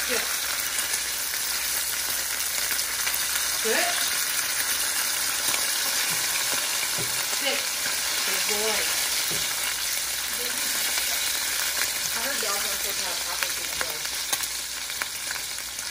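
Bacon strips sizzling steadily in hot fat in a nonstick skillet, with light scattered clicks and scrapes from tongs turning the strips.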